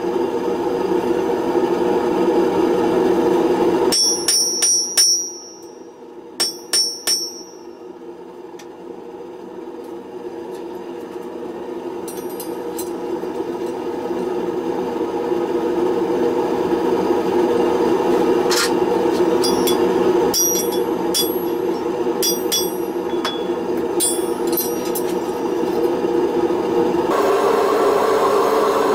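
Gas forge burner running steadily while a hammer strikes hot round bar on an anvil in several short runs of quick blows, each ringing high. The burner's noise drops sharply about four seconds in, then builds back up.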